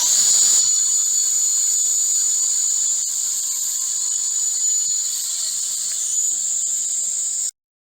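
Sliding table saw's three-phase motor switched on: it spins up with a rising whine in the first moment, then runs free at full speed with a steady high-pitched whine, cutting off suddenly near the end.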